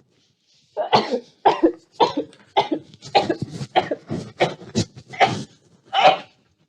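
A woman sneezing in a rapid fit: about a dozen short sneezes in quick succession, roughly two a second, starting about a second in.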